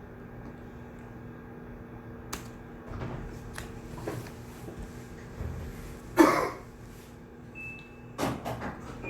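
Shared study room ambience: a steady low hum with scattered small clicks and knocks of people at their desks, and one louder clatter about six seconds in followed by a few more knocks near the end.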